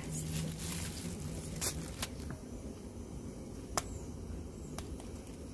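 A few short, sharp clicks and taps, the loudest near the end, as a gloved hand works the food in a metal camping pot on a portable gas stove. Under them is a low, steady background.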